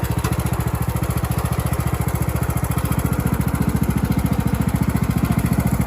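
John Deere riding lawn tractor's engine running steadily with a rapid, even chugging pulse, its tone changing slightly about halfway through.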